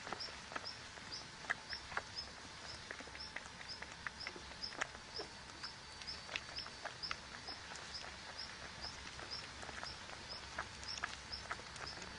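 A short, high chirp repeated evenly, roughly three times a second, over scattered faint clicks and rustles.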